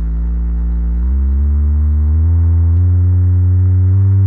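Loudspeaker playing a low pure tone whose pitch is turned up in small steps, a few jumps in all, from a low note to about 100 hertz. It grows louder as it rises.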